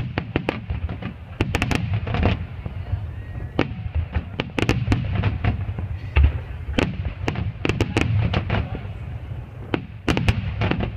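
Fireworks finale barrage: aerial shells bursting in rapid succession, many overlapping bangs several a second over a continuous low rumble.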